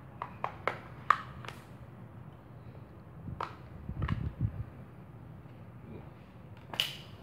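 Samsung Galaxy Note 4's plastic back cover being prised off, its clips letting go as sharp plastic clicks: a quick run of clicks in the first second and a half, another around three and a half seconds, and a last loud snap near the end. There is a low rumble of hand handling around four seconds.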